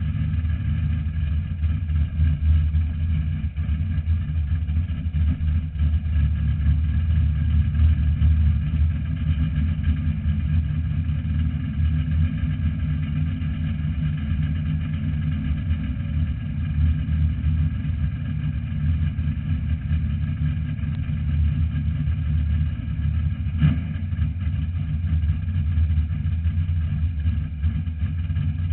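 Race car's engine idling, heard from inside the cabin, its running uneven in loudness; the car has a problem audible in the sound that was later worked out. One sharp click about three quarters of the way through.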